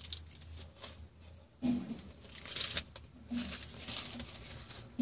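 Crinkling of an aluminium-foil sandwich wrapper and rustling of a paper napkin in several short bursts, with chewing.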